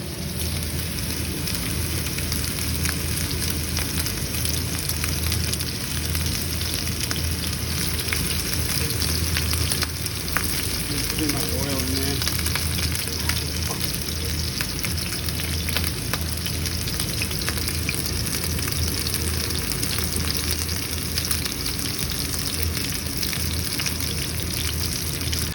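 Sous vide steak searing in a hot pan, sizzling steadily with scattered small pops.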